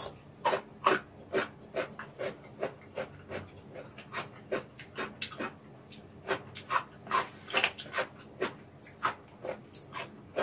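Close-miked chewing: a person eating a mouthful of food with wet mouth smacks and clicks, about two a second, irregular.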